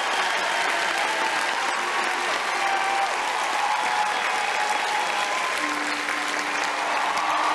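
A crowd applauding steadily, many hands clapping at once, with a few faint held musical tones beneath.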